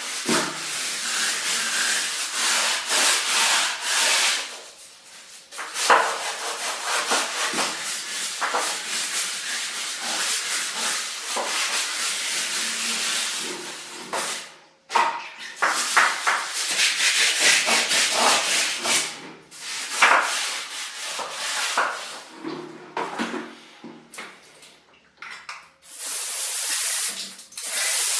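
Stiff brush scrubbing bathroom surfaces in quick back-and-forth strokes, with a few short pauses. Near the end it gives way to a steady spraying hiss.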